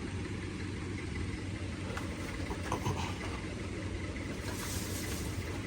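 A vehicle engine idling with a steady low rumble, and a short hiss near the end.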